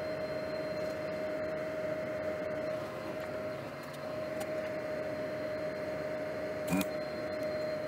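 Steady machine whine on one tone over a hiss from running soldering-bench equipment, with one short click about seven seconds in.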